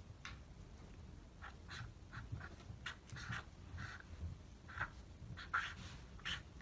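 Handwriting on paper: a run of short, irregular scratchy pen strokes, faint and uneven in loudness.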